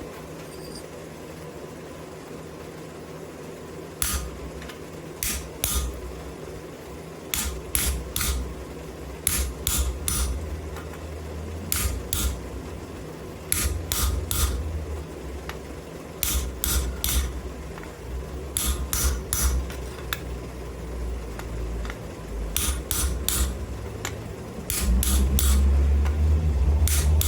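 Sharp metallic clicks and knocks at irregular intervals, about one or two a second, over a low rumble, as a wrought-iron piece is cut off its bar; near the end a louder low hum sets in.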